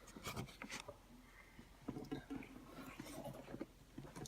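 Faint handling noises: light taps, clicks and rustles of plastic parts being moved by hand.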